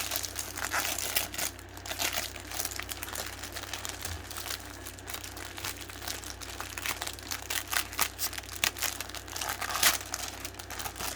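Small plastic bags of diamond painting drills being handled and sorted, crinkling irregularly throughout, with a sharper crackle about ten seconds in.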